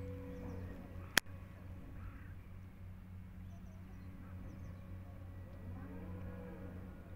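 Steady low hum like a distant engine, with a few faint bird calls and one sharp click about a second in.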